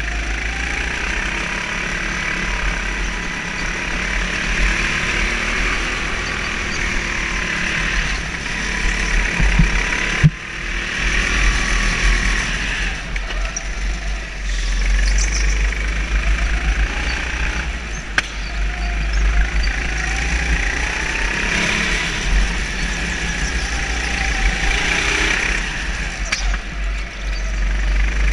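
Go-kart engine running under throttle from the driver's seat, its pitch rising and falling through the laps, over heavy rumble on the microphone. A sharp knock about ten seconds in.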